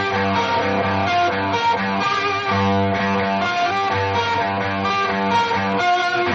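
Background music: a guitar-led track with strummed electric guitar and bass.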